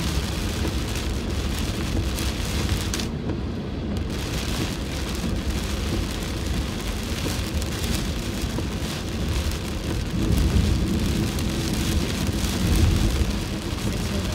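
Heavy rain pelting a car's roof and windshield, heard inside the moving car over a steady low rumble of the road. The hiss of the rain drops out briefly about three seconds in.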